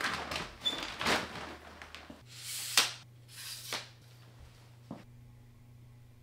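Rustling and light knocks of belongings being moved and packed by hand, then two brief whooshing rustles and a single click over a faint steady hum.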